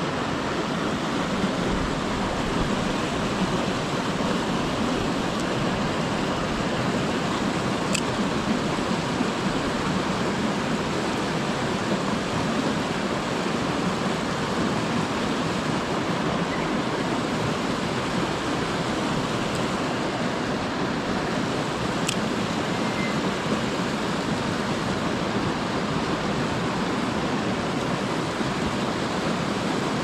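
Steady rush of a small mountain stream tumbling over little cascades, with two brief faint high ticks, one about a quarter of the way in and one about three quarters of the way in.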